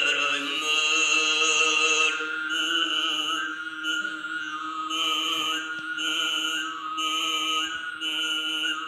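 Solo unaccompanied Tuvan throat singing: one voice holds a steady low drone while a high, whistling overtone melody steps up and down above it.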